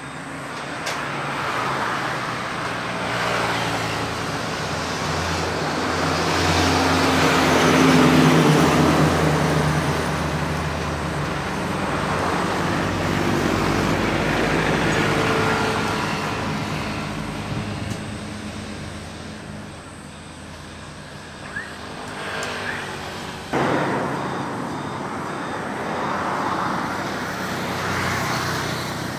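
Road traffic: several motor vehicles passing in turn, with engine sound swelling and fading, loudest about eight seconds in.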